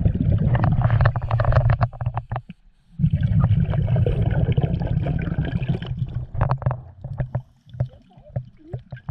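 Scuba regulator exhaust bubbles heard underwater, bubbling and crackling in two long exhalation bursts with a short pause between, then tapering off to scattered bubble pops and clicks.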